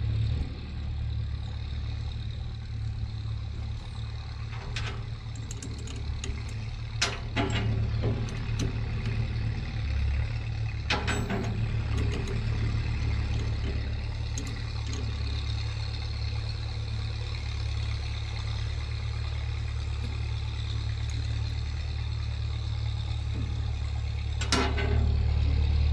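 A few sharp metallic clinks of wrenches working bolts on a hay baler's knotter, over a steady low rumble.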